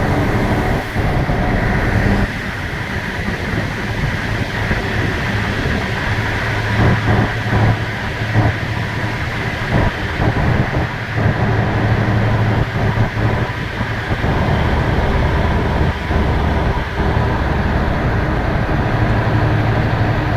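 Steady engine drone and road noise from a moving vehicle, with a low hum that briefly dips and returns several times.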